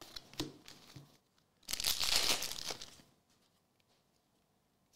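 Trading cards being slid and flipped in the hands with a few soft clicks, then about a second of loud crinkling of a plastic foil card-pack wrapper.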